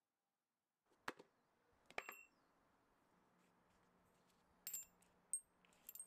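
Small steel parts of a disassembled vintage S-K quarter-inch drive ratchet clinking as they are handled and set down. The first light metallic click comes about a second in, then a few more with a short high ring, several close together near the end.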